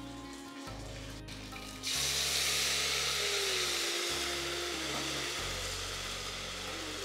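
A sizzle starts suddenly about two seconds in and then slowly eases: watery ginger-garlic paste hitting onions frying in hot mustard oil in a pressure cooker. Background music plays throughout.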